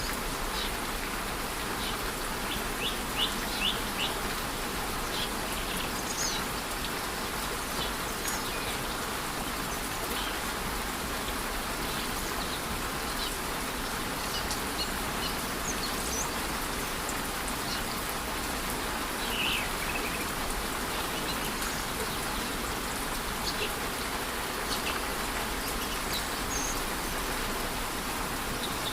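Steady rush of a rainforest waterfall in light rain, with short high bird chirps scattered through it, a quick cluster of them about three seconds in.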